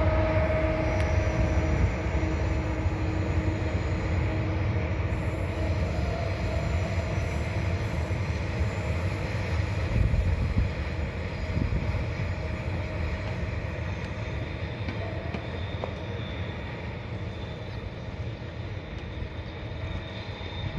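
Freight train of hopper wagons hauled by an Alstom electric locomotive, rolling along the rails and receding, its rumble fading gradually. A thin high tone comes in over the second half.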